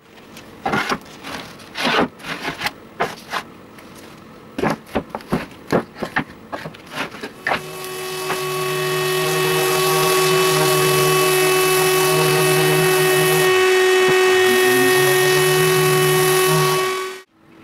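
A series of sharp wooden knocks and clatters as boards are handled on a workbench. Then an electric random orbital sander starts, winds up over about two seconds and runs steadily with a whine while sanding a wooden board, cutting off suddenly near the end.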